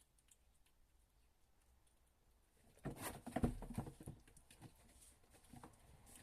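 Little kittens scuffling and pattering about: a burst of soft thumps and rustling about three seconds in, then fainter pattering.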